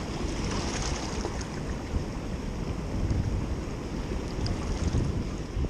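Wind buffeting a chest-mounted GoPro's microphone in gusts, over a steady rush of water from the lake's spillway.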